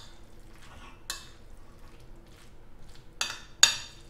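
A metal utensil stirring salad with a thick yogurt dressing on a ceramic plate, with soft wet mixing and a few sharp clinks against the plate, the loudest about three and a half seconds in.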